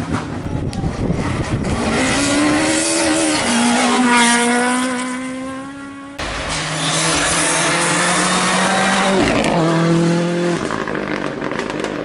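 Rally car engines running hard, their note rising in pitch and then holding steady with short steps as the gears change. About halfway the sound changes abruptly to another car's engine, which holds a steady high note with further step changes.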